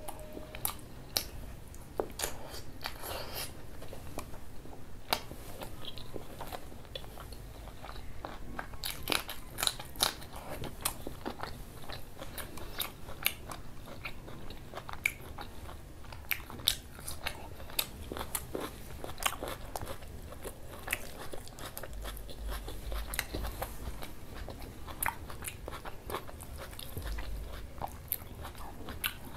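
A person chewing and biting close to the microphone while eating meat curry with dal puri by hand: many irregular wet mouth clicks and small crunches.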